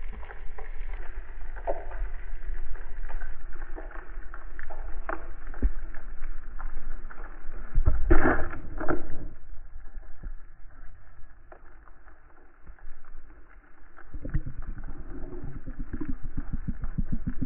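Underwater sound through a diver's camera housing: a constant crackle of scattered clicks, a louder gurgling rush about eight seconds in, and a fast low pulsing that starts about fourteen seconds in.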